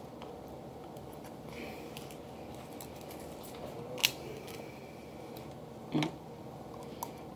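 Boiled snow crab leg shells cracking as they are snapped apart by hand: two sharp snaps about two seconds apart, the first the louder, and a fainter one near the end.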